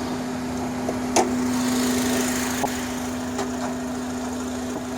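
2005 Honda Accord four-cylinder engine idling with a steady hum over it. The owner suspects a vacuum problem, or possibly the throttle body or intake manifold. A single click comes about a second in.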